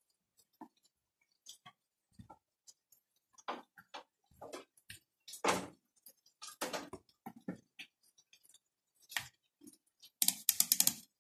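Small handling clicks and taps as a resistor and a multimeter's test probes are picked up and handled, ending in a quick rattle of about ten even clicks.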